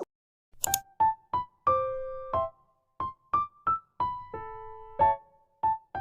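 Background music: a simple melody of short, separate notes that fade quickly, with brief silences between them.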